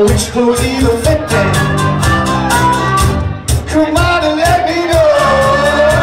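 A live band playing with guitars and singing over a steady beat, with one long held sung note near the end.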